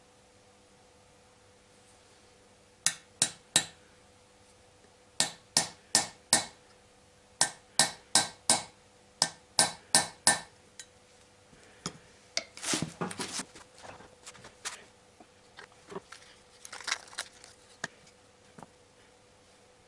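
Small hammer tapping a seal-driving mandrel to press valve stem seals onto the valve guides of a VAZ-2111 8-valve cylinder head, in short bursts of three or four sharp taps per seal. After about twelve seconds the tapping gives way to irregular clattering as small parts are handled.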